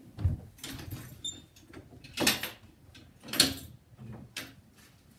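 Handling noises as items are picked up and moved about: a few short scraping, rustling sounds, the loudest about two and three and a half seconds in, after a soft low thump at the start.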